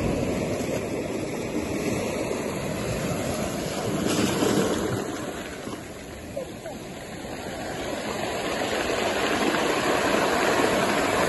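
Small ocean waves washing in over a cobble beach, the surf swelling about four seconds in, falling away, then building again near the end.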